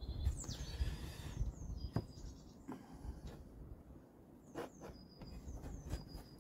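A utility knife cutting gasket paper against the edge of a metal crankcase door on a wooden bench: a few light clicks and knocks. Birds chirp in the background.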